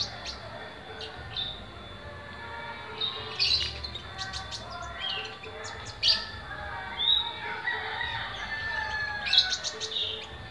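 Caged kolibri ninja, a small sunbird, singing in scattered bursts of sharp, high chirps and quick twittering trills. The fullest bursts come about three to four seconds in, around six to seven seconds, and near the end.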